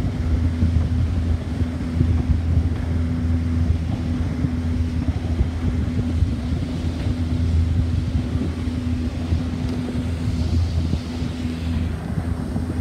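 Motorboat engine running at a steady pitch while the boat is under way, with wind noise on the microphone.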